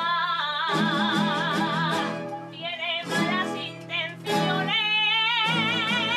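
Aragonese jota sung by a woman, with two long held notes carrying a wide vibrato, one at the start and one from about two-thirds of the way in. Plucked guitars accompany her.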